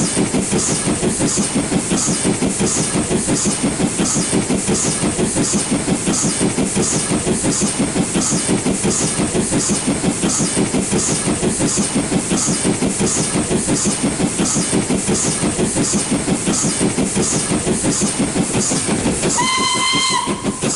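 LNER B12 4-6-0 steam locomotive working hard as it accelerates up a gradient, its exhaust chuffing in an even, steady beat. Near the end the engine's steam whistle gives one short blast.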